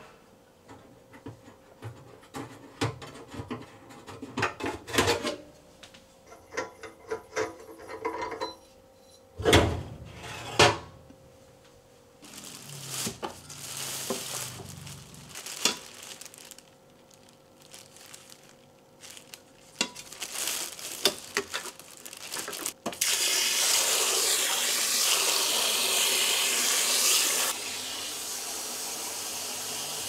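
Clicks and clatter as range-hood fan parts are handled, with a plastic bag rustling and two sharper knocks. About 23 seconds in, a pull-out kitchen faucet starts running hard into a plastic bag in the sink, a steady rush that grows quieter for the last couple of seconds.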